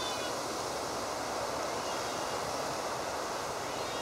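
Steady outdoor rushing ambience, the even hiss of open air such as wind or distant surf, with faint high-pitched chirping just at the start and again near the end.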